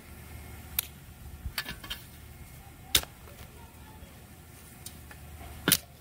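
Steel spade blade striking and chopping into packed soil and tree roots: several sharp, separate hits, the loudest about three seconds in and another just before the end.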